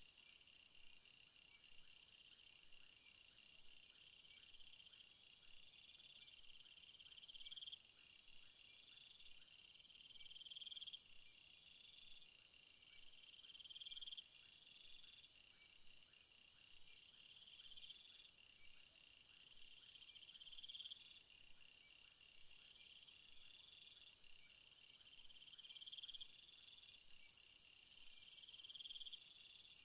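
Faint outdoor chorus of singing birds and chirping insects. A buzzy trill swells and cuts off about every two seconds over steady high chirping, and a high hiss joins near the end.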